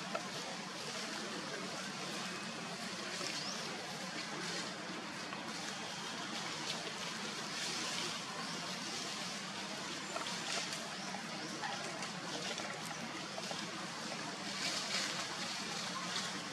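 Steady outdoor background hiss, with brief rustles of dry leaves several times as monkeys move over the leaf-strewn ground.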